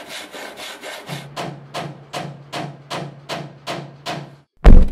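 Handsaw cutting through a wooden plank in steady back-and-forth strokes, about two and a half a second. Near the end comes a single heavy thud.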